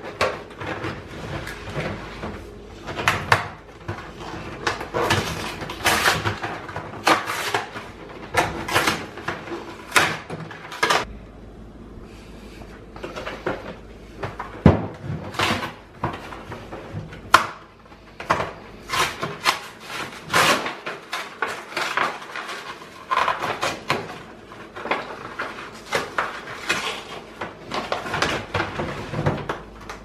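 Aluminium soda and beer cans clattering and clinking as they are pulled from cardboard cases and stacked on a refrigerator shelf. It comes as an irregular string of sharp knocks, with a quieter pause around the middle.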